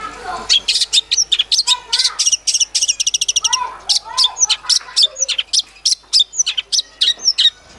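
Long-tailed shrike (cendet) singing: a rapid string of short, sharp, high chirps, with a fast trill about three seconds in and a few lower warbled notes mixed in.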